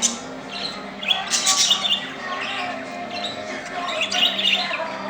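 A flock of budgerigars chattering, with many quick chirps and a loud burst of squawks about a second and a half in.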